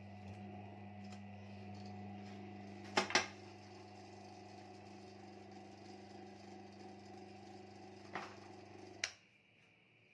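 Homemade drill press's small electric motor running with a steady hum, with two sharp knocks about three seconds in. A smaller knock follows near eight seconds, then a click about nine seconds in, and the motor's hum cuts off suddenly.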